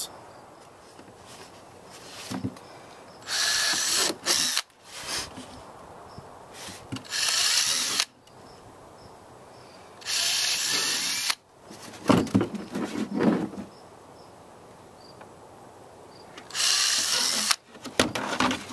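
Cordless drill with an eighth-inch bit pre-drilling holes through a plastic compost tumbler panel: four short bursts of about a second each. Between bursts the handled panel gives a run of loud knocks.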